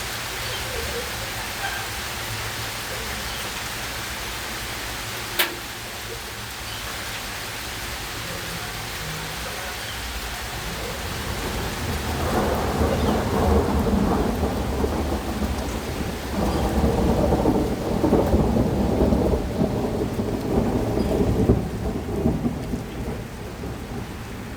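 Hailstorm: hail and rain falling in a steady hiss, with a single sharp crack about five seconds in. From about twelve seconds the storm grows louder in two rumbling swells, then eases near the end.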